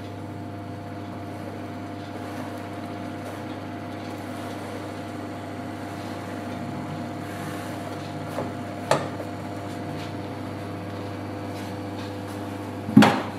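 Shredded cabbage being pushed off a plastic cutting board into a stainless-steel pot, over a steady low hum. There are a couple of soft knocks partway through and a loud sharp knock of board against pot near the end.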